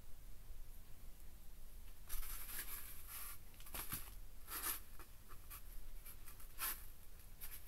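Hands handling a skinned sawtail surgeonfish on a styrofoam board, making a series of short scratchy rubbing noises from about two seconds in, over a faint low hum.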